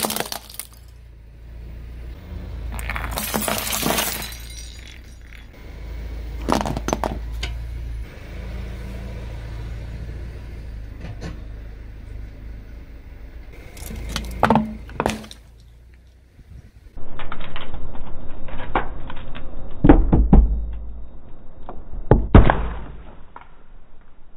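A car tyre rolling over and crushing a series of objects on paving stones: several separate cracks and crunches, the loudest near the end, over a low rumble from the car.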